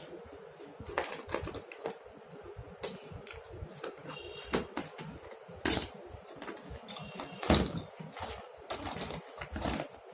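Small metal hand tools clinking and clattering as they are picked up and set down, irregular knocks with a brief metallic ring now and then.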